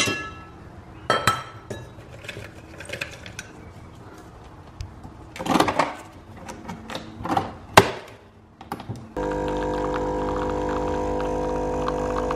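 Nespresso capsule coffee machine being loaded: clicks and clunks of the lid lever being lifted and shut on a capsule. About nine seconds in, the machine's pump starts with a sudden steady loud drone as espresso pours into the cup.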